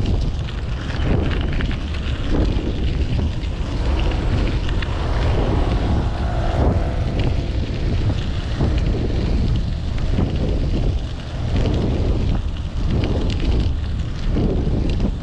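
Wind rumbling and buffeting on the microphone of a camera riding on a moving bicycle, with street traffic beneath it.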